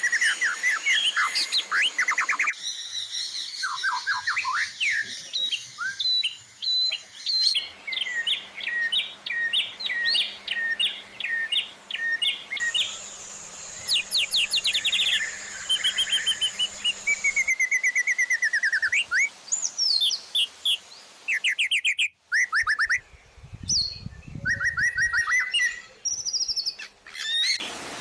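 Songbird song spliced together from several recordings, as in a shama training (masteran) tape. The singer changes abruptly every few seconds. Fast runs of sharp repeated chirps and high whistled notes, some falling in pitch.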